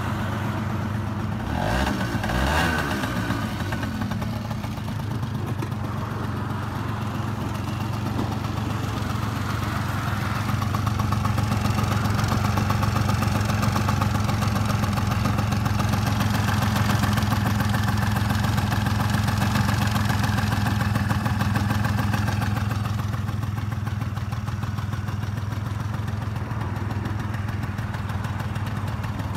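Honda Giorno AF24's 50cc two-stroke single-cylinder engine idling steadily on the stand, with a brief rise and fall in engine speed about two seconds in.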